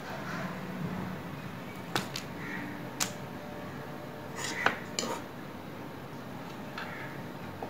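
A handful of light clicks and clinks of kitchen utensils and dishes, spaced a second or so apart, the sharpest about four and a half seconds in, over a steady background hiss.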